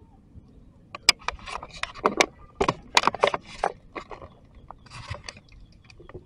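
Dry leaves and twigs crackling and rustling as a long-tailed macaque scrabbles through leaf litter with its hands. A dense run of sharp crackles begins about a second in and lasts a few seconds, with a few more just past the middle.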